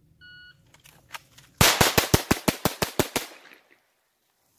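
Shot-timer start beep, then a rapid string of ten shots from a Glock 44 .22 LR pistol, about six a second, with a short echo trailing off after the last one.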